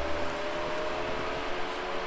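Off-road vehicle's engine running steadily at idle, a constant hum of a few held tones over a steady hiss.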